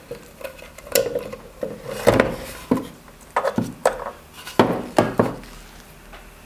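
Irregular knocks and clatter of the Digital TS-60 loudspeaker amplifier's casing and parts being handled while it is opened up, with about eight sharp knocks and the loudest near the middle.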